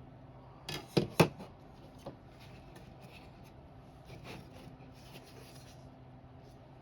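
Two sharp clicks about a second in, then a fainter one, with light rubbing and scraping of camper window parts being handled and fitted into their channels.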